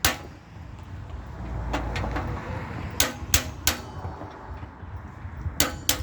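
Sharp metal-on-metal strikes from an improvised hammer on a drift set against a mini bike's head tube bearing, driving the bearing out of the head tube. About eight blows come in quick clusters: one at the start, two a little before two seconds in, three around the three-second mark and two near the end.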